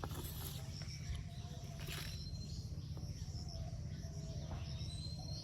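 Crickets chirping in a steady repeating pulse, with a thin rising whistle near the end.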